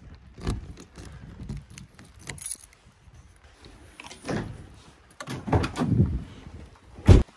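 Keys jangling and the latch and hatch of a pickup truck's topper clicking and knocking as it is unlocked and opened, with a sharp loud thump about seven seconds in.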